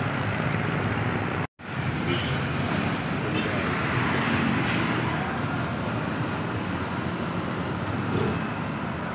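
Roadside traffic noise: vehicles passing on a street, steady throughout, with a brief drop-out about a second and a half in.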